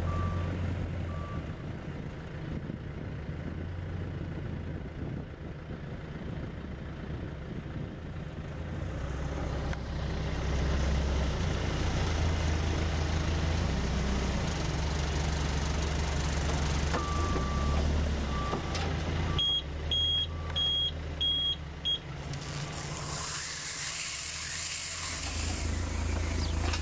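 JCB 520-50 telehandler's diesel engine running steadily while it carries and handles silage bales. A reversing alarm beeps at the start and again about 17 s in, and a faster, higher-pitched beep sounds five times around 20 s. Near the end a hiss rises over the engine.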